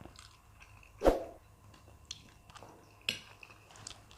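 Eating at the table: chewing, with small clicks of a spoon against a plate. A sharp knock about a second in and another near three seconds.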